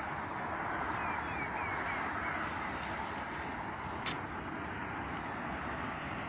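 Outdoor riverside field recording on a phone: a steady rushing noise with a few short, falling bird chirps between one and two and a half seconds in, and a single sharp click about four seconds in.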